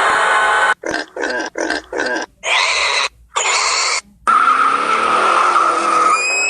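A quick string of separate sound-effect clips cut together. First comes a continuous sound, then four short squealing bursts and two noisy bursts, and after a brief silence a long, steady high screech with hiss. A rising tone starts near the end.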